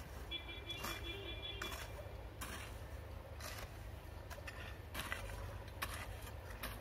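Hand hoes chopping and scraping into loose red soil, irregular strikes roughly one a second, over a steady low rumble. A brief steady tone sounds faintly in the first two seconds.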